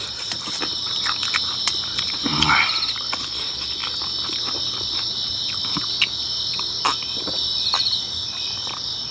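Steady chorus of crickets chirping at night, with scattered small clicks of eating and drinking and one short vocal sound about two and a half seconds in.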